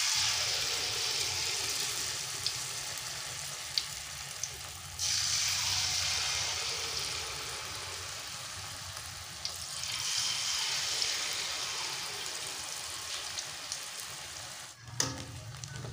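Rice-flour and shrimp batter sizzling in hot oil in a wok as peyek shrimp crackers deep-fry. The sizzle jumps up twice more, about five and nine seconds in, as more batter goes into the oil, and eases off slowly in between, with a few sharp pops.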